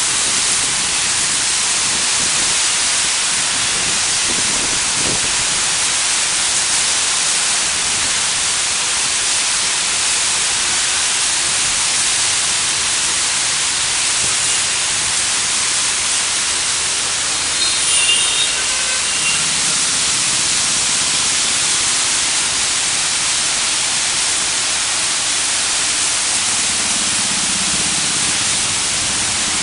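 Heavy rain falling in a steady, loud hiss, with a faint low rumble of passing traffic and a brief louder sound a little past the middle.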